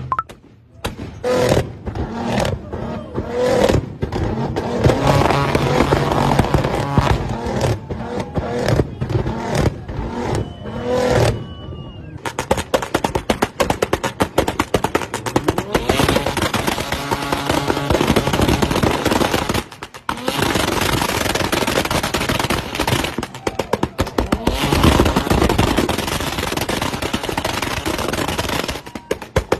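Car engines revving hard again and again, their exhausts popping and crackling in rapid strings of sharp bangs as the revs drop.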